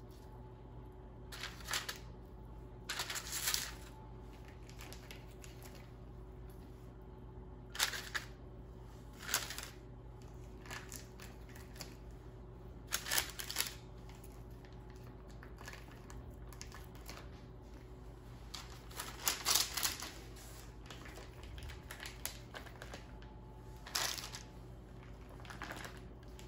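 Raw bacon strips being peeled from their plastic package and laid on parchment paper: short rustles and crinkles of plastic and paper every few seconds, over a steady low hum.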